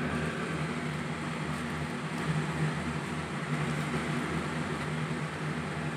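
Steady machine hum with a constant low drone, like a motor or fan running, with no clear starts or stops.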